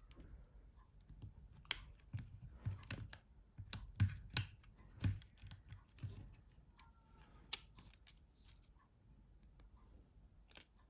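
Small clicks and scrapes of a Nokia 6700 Classic's housing being prised apart by hand, the front cover coming off the middle cover. The clicks come in an uneven run, loudest around four to five seconds in, with one sharp click about seven and a half seconds in and only faint handling after that.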